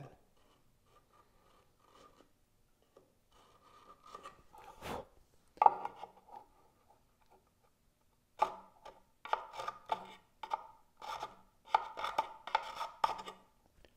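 Hand-held carbide scraper scraping cured super glue squeeze-out off oak, in short scratchy strokes with a slight ringing tone: a few single strokes at first, then a quick run of strokes over the last few seconds.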